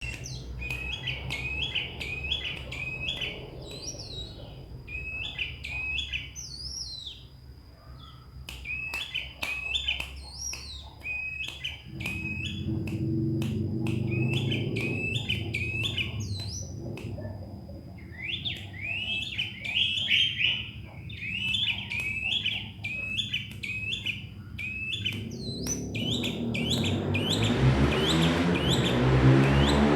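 Sooty-headed bulbul (kutilang) singing a long run of quick, repeated chirping notes, with many sharp clicks among them. Near the end a rushing noise grows louder and rises steadily in pitch.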